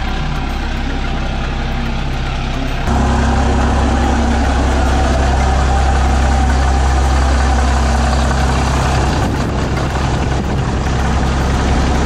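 Ram pickup's 6.7-litre Cummins turbo-diesel idling, a steady low drone that steps up louder about three seconds in.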